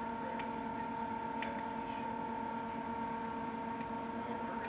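PC case fan running steadily: a constant hum with a steady whine, and a few faint ticks.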